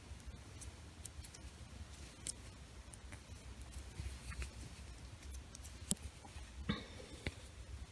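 Faint light clicks of metal knitting needles as stitches are bound off by hand, with a few sharper clicks about six seconds in.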